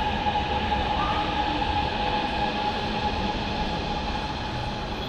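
Wuhan Metro train running, heard from inside the carriage: a steady rumble and hiss with a steady whine, the loudness easing slightly toward the end.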